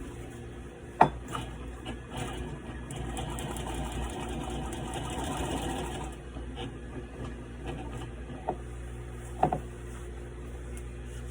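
Adler 67 industrial sewing machine running steadily as it stitches through thick ratchet-strap webbing, with a few sharp clicks, about a second in and twice near the end.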